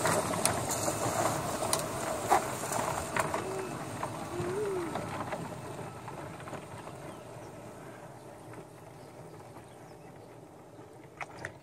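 Backyard ride-on miniature train rolling along its track: a steady rolling noise with a few clicks in the first few seconds, fading steadily as the train moves away.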